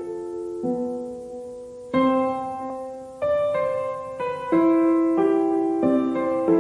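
Background piano music: slow chords struck and left to ring, changing about once a second.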